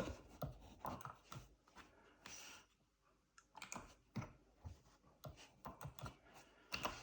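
Arcade joystick and push buttons clicking at an irregular pace as the controller is worked, with a short pause about three seconds in.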